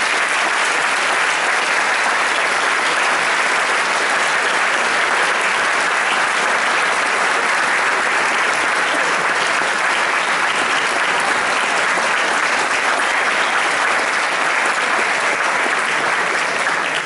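Audience applauding: dense, steady clapping that begins to ease off only at the very end.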